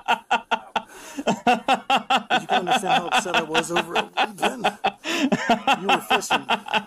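A man laughing hard in quick, rapid breathy pulses, about five a second, with brief pauses to catch his breath.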